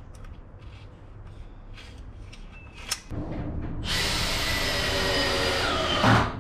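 Faint taps from hand work on a melamine board, then a power tool's motor starts about three seconds in and runs loudly and steadily for about three seconds, cutting off briefly near the end.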